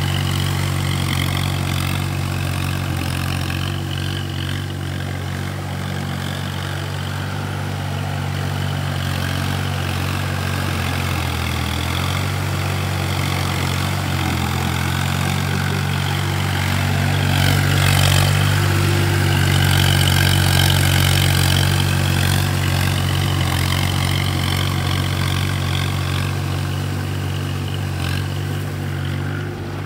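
Swaraj 855 FE tractor's three-cylinder diesel engine running steadily under load as it drives a rotavator through flooded paddy mud, getting a little louder for a few seconds just past halfway.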